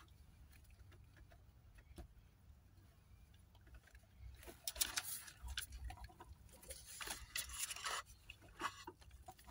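Faint rustling and scraping of hands handling wiring and a plastic connector, in short bursts about four and a half seconds in and again from about seven to nine seconds, with a single click about two seconds in.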